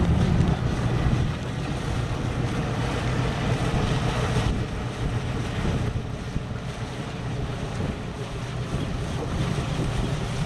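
Wind buffeting the microphone over the steady low rumble of a cruiser's twin 8.1-litre MerCruiser V8 inboards running at low speed, with water washing along the hull.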